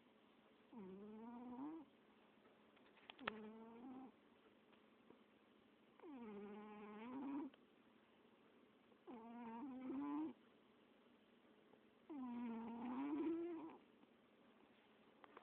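Rhythmic, pitched snoring: five drawn-out breaths about three seconds apart, each with a whistly tone that dips and then rises. A brief sharp click about three seconds in.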